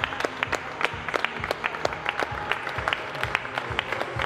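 A small crowd applauding, with many separate hand claps, over background music.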